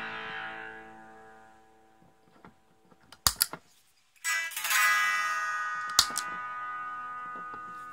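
Electric guitar played through a Raizin '60s Vintage Tweed' effect pedal: a strummed chord rings and fades almost to nothing. After a couple of sharp clicks, a second chord is strummed a little before the middle and rings on, slowly decaying.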